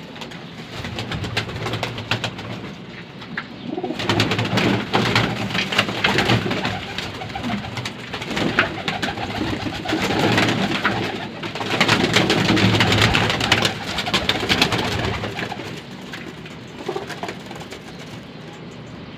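Domestic pigeons cooing, with a stretch of close rustling noise through the middle that is loudest a little after the halfway point.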